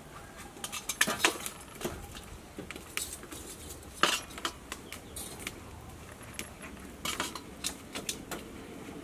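Metal kitchenware clinking: a utensil and lid knocking against a large aluminium cooking pot, in scattered sharp clinks and taps, the loudest about a second in and again about four seconds in.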